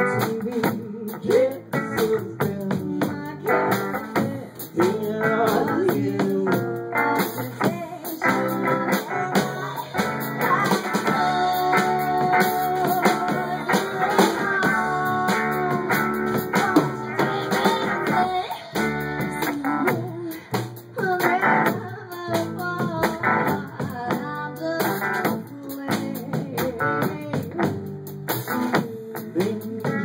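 Live swing band music with an upright bass, a woman singing with the band.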